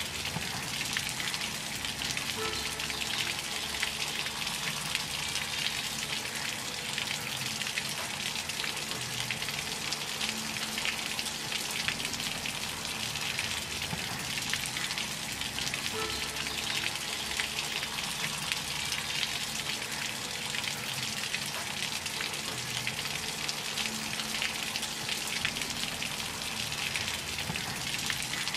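Steady stream of water gushing from a small DIY water pump's outlet pipe and splashing down, a continuous even splashing.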